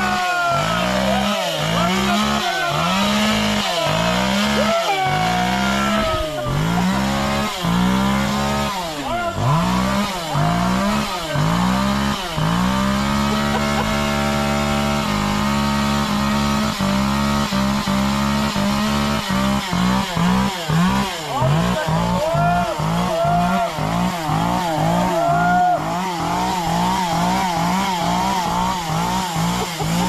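Two-stroke chainsaw engine revved again and again in quick blips, held steady for a few seconds midway, then blipped faster in the last part.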